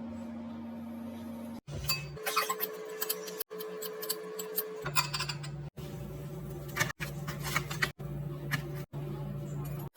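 Light clicks and clinks in quick clusters over a steady low hum. The sound breaks off sharply every second or so, and the hum's pitch changes at each break.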